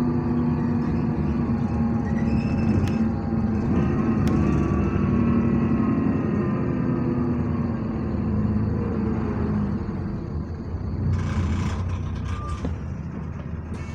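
Bus engine and drivetrain droning while the bus is moving, heard from inside the passenger saloon, with a moaning tone whose pitch falls about midway. About eleven seconds in comes a short burst of hiss.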